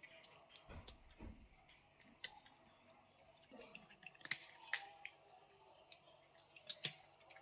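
Cats eating dry kibble: irregular sharp crunches and clicks as they chew, the loudest about four seconds in and again near the end.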